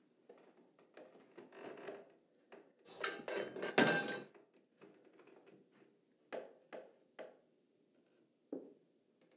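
Footsteps and knocks on a wooden staircase, with a louder rough scraping and rustling stretch about three to four seconds in, then three sharp knocks about half a second apart and one more near the end.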